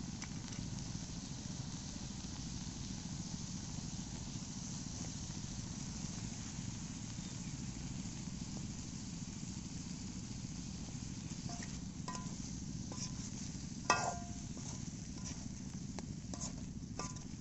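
A few light metallic clinks with brief ringing over a steady low rumble; the clinks come in the last few seconds, and one sharper clink stands out near the end.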